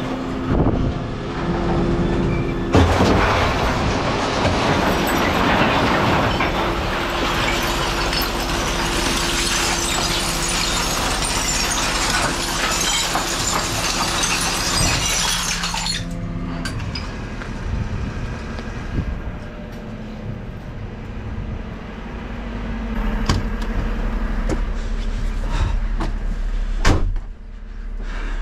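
Glass bottles and jars crashing and shattering as a wheelie bin of glass is tipped into the rear hopper of a Terberg refuse lorry: a long continuous crash lasting about thirteen seconds, over the steady hum of the truck's hydraulics. Afterwards come a few separate metallic clunks, the loudest near the end.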